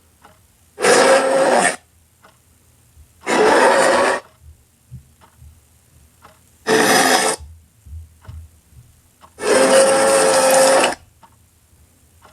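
Grizzly bear roar sound effects: four loud, rough roars, each about a second long, the last about a second and a half, with short pauses between them.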